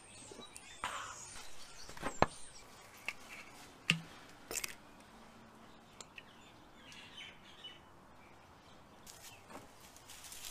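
Faint bird chirps in the background, with a few sharp knocks and clicks from a glass bottle and a raw lamb shoulder being handled on a cutting board. The loudest knocks come about two and four seconds in.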